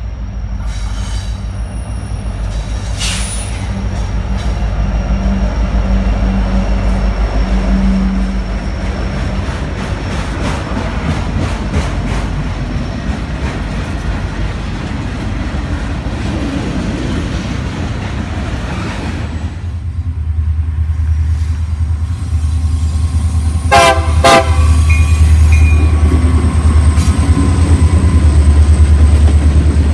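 Freight train passing close by: a diesel locomotive's engine rumbles past, then the railcars roll by with steel wheels clacking over the rail joints, including a quick run of clacks about 24 seconds in. A deep low rumble grows heavier over the last third.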